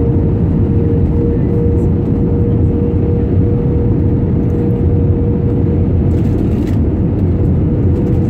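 Airbus A320 cabin noise on approach: a steady rumble of the jet engines and airflow over the wing, with a steady hum running through it.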